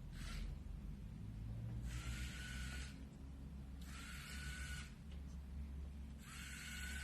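Small DC gear motors of a Raspberry Pi Zero RC car whirring in short bursts of about a second, four times, each with a whine that rises quickly as the motors spin up and then holds steady.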